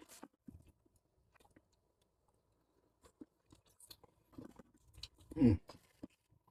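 A person eating noodles: faint chewing and small clicks of chopsticks or bowl, then a louder short mouth sound, a slurp or hum, about five seconds in.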